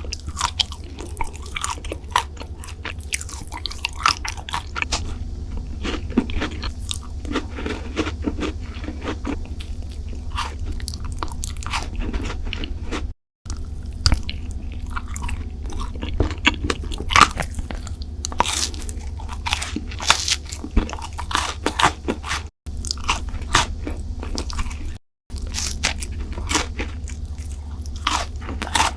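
Close-miked eating of sugary desserts: crisp crunching bites and chewing, full of sharp crackles, over a steady low hum. The sound drops out completely for a moment three times.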